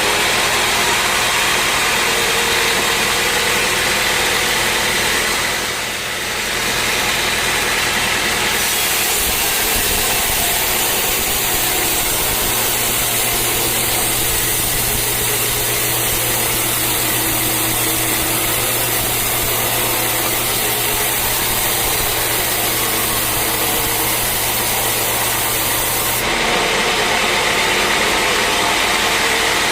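Sawmill running, its saw cutting through a teak log. About a third of the way in the sound turns brighter and hissier over a steady low hum, and near the end it drops back to the plainer machine noise.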